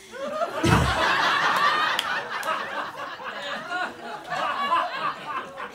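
Audience laughing, many voices swelling about half a second in and tapering off over the following seconds, with a low thump as the laughter starts.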